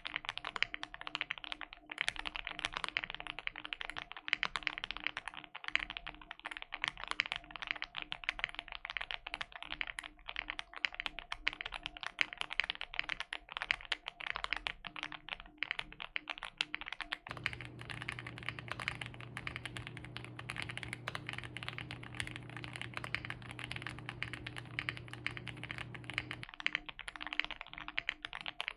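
Fast continuous typing on a Meletrix Zoom75 mechanical keyboard with lubed and filmed Banana Split 62g linear switches, a polycarbonate plate, foam inside and PBT Cherry-profile keycaps. It gives a dense run of quick keystrokes with no pauses.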